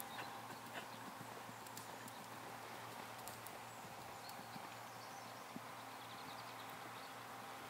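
Faint hoofbeats of an Irish Cob horse trotting under a rider on a loose arena surface, over steady background noise.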